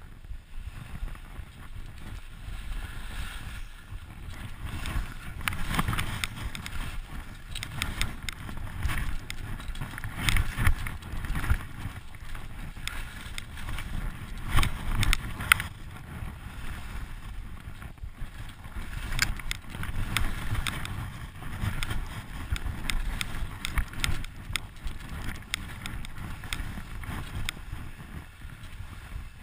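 Skis sliding and hissing through snow on a downhill run, with wind rumbling on the microphone. Scattered short scrapes and knocks come throughout as the skis and pole hit the snow.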